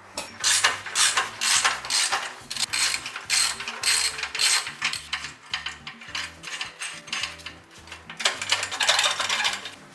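Ratchet spanner clicking in rapid repeated strokes, working the bolts of the exhaust clamps under the car.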